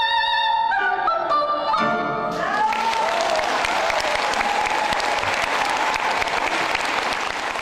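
The last notes of a classical piece: a held note with vibrato, then a short falling run of notes. About two seconds in, the audience starts applauding and keeps clapping.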